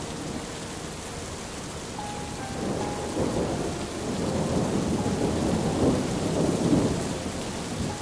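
Steady rain, with a long low rolling rumble that builds from about two and a half seconds in, is loudest near the end, then eases. The uploader cannot tell whether the rumble is thunder or distant shelling.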